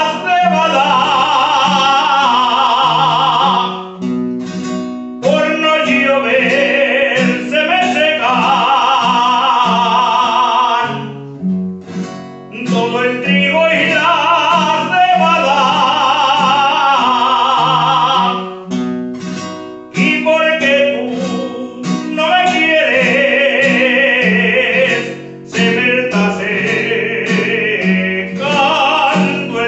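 A man singing an Aragonese jota, long phrases of held, wavering notes, accompanying himself on a Spanish guitar. Between the sung lines the guitar strums and plucks on its own for a moment, four times.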